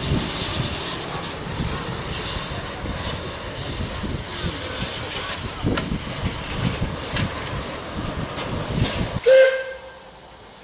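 Norwegian State Railways class 21c steam locomotive working away down the line: irregular exhaust chuffs over steady steam hiss and rail noise. Near the end a short blast on a steam whistle, then only a quieter steady hiss.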